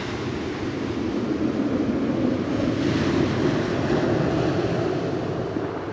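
Steady rushing of surf on the shore mixed with wind on the microphone.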